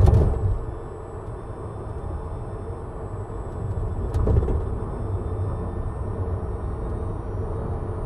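Tesla Model 3 Performance, an electric car with no engine note, driving at road speed: steady tyre and road rumble, with a short thump right at the start and another about four seconds in.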